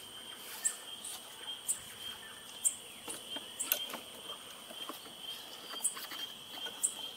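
A steady high-pitched insect drone, with short high chirps about once a second, over soft clicks and rustles from a knobby spare tire and a nylon ratchet strap being handled.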